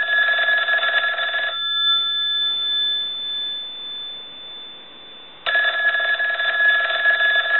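Stromberg-Carlson 500 rotary telephone's bells ringing on the low ring-voltage setting, driven by a line analyzer; the ringer has just been adjusted so it will ring on low line voltage. The ringing stops about one and a half seconds in, the gongs hum away, and it starts ringing again about four seconds later.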